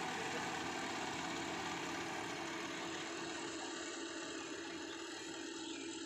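Yanmar AG600 rice combine harvester running steadily while it cuts, a steady engine hum with a held low tone. It grows slightly fainter in the second half as the machine moves away.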